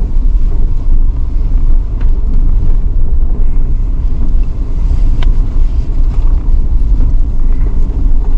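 Steady low rumble of a 4x4 driving on a dirt mountain road, heard from inside the vehicle, with a couple of faint clicks.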